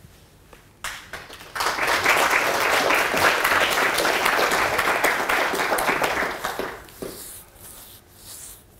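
Audience applauding: a few scattered claps about a second in, then dense applause for about five seconds that dies away.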